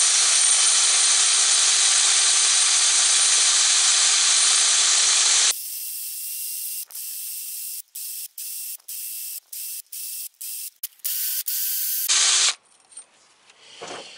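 DeWalt 18-volt cordless drill spinning a wire brush against a steel socket, scrubbing off corrosion: a loud, steady grinding hiss for about five seconds, then a thinner, higher hiss that stops and starts in many short stretches until near the end.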